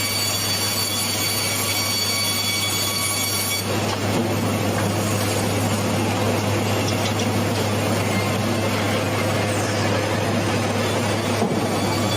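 Sawmill machinery running steadily: a constant low hum under a broad hiss. A thin high whine drops out about three and a half seconds in.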